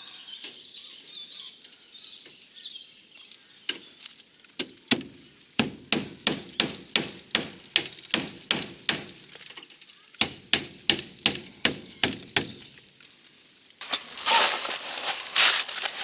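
Hammer blows, about three a second, in two runs with a short break between them. A loud rustling, scraping noise follows near the end.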